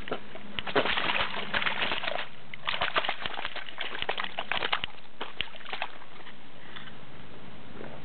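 Carp thrashing in a mesh keepnet, water splashing and slapping in irregular bursts with sharp clicks. The thrashing breaks off briefly a little after two seconds and dies away about six seconds in.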